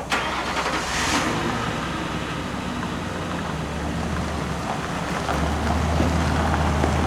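A motor vehicle's engine running steadily, with a brief burst of hiss about a second in.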